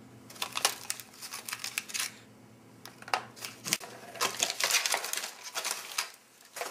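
Crinkling and crackling of a laminated MRE cracker pouch as it is slit open and peeled back, in two spells with a pause between, and a single knock partway through as the crackers are laid on the plastic tray.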